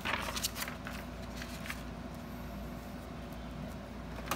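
Paper rustling with light handling clicks as a sheet is laid over an ID card on a copier's scanner glass, over a steady low hum. The rustling fills about the first two seconds; another short rustle comes near the end.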